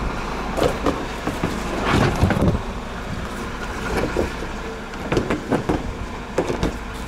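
Truck engine idling steadily, with scattered short knocks and clicks of parts being handled during fender fitting.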